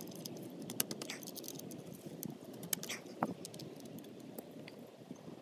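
Warm engine oil draining from a Suzuki DR350's crankcase and frame drain holes, pattering steadily into a drain pan. Scattered sharp clicks of an 8mm socket wrench on the oil filter cover bolts come over it, several of them in the first second.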